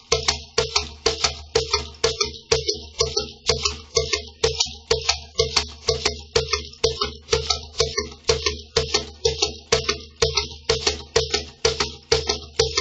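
Cajon played with the hands in a steady, even rhythm of sharp strokes, practising the 12/8 triplet exercise: the weak hand plays the downbeats and the strong hand fills in the triplets, with an accent on the second note.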